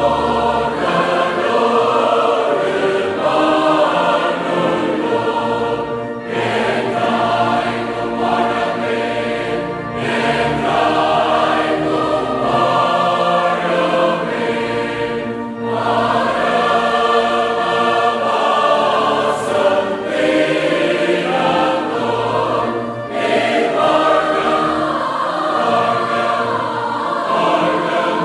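Several voices singing a Tamil hymn together, in long sung lines with brief breaks between them.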